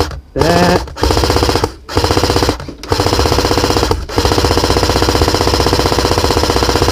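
AK-pattern airsoft rifle firing on full auto: a rapid, even rattle of shots in four short bursts with brief pauses, then one long burst of about three seconds.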